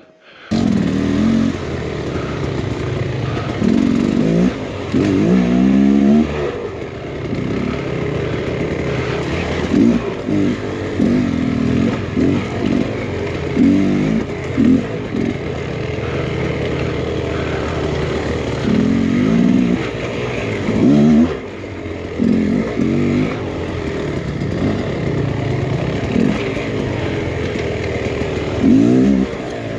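Beta X-Trainer 300 two-stroke dirt bike engine on the trail, its revs rising and falling over and over as the throttle is worked, with a short lull about two-thirds of the way through.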